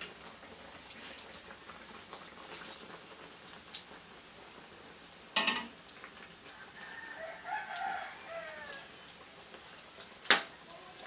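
Banana pieces frying in a wok of hot oil, a steady sizzle, with metal tongs knocking against the pan about halfway and again, loudest, near the end. A drawn-out call sounds in the background in the middle.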